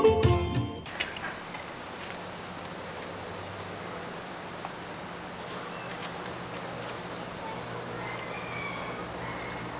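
Steady, high-pitched chorus of insects trilling continuously, coming in about a second in as plucked-string music fades out.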